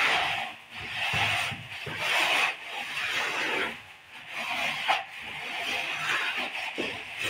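A long straightedge scraped across fresh cement plaster on a wall in repeated rasping strokes, about one a second, to level the coat. A sharp knock comes about five seconds in.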